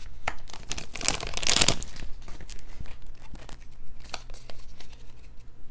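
Foil wrapper of a Pokémon card booster pack crinkling and tearing open, densest in the first two seconds, then lighter rustling and small clicks.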